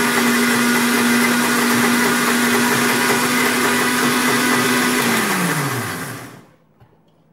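Electric mixer grinder running steadily with a stainless steel jar, crushing frozen mango and sugar. It is switched off about five seconds in, and its pitch falls as the motor winds down to a stop.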